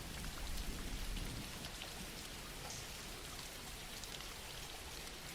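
Soft, steady rain falling, with scattered drops pattering. A faint low rumble swells briefly about a second in.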